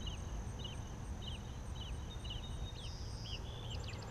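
Outdoor pond-side ambience: a bird chirps repeatedly, a short call a little under every half second, with a few quick downward chirps near the end. A steady high insect buzz and a low rumble run underneath.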